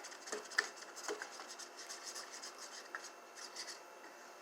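A spoon stirring and scraping through a thick white-glue slime mixture in a bowl: faint, irregular scrapes and small clicks.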